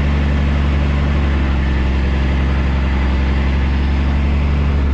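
Truck engine running steadily, a low even drone heard from inside the cab.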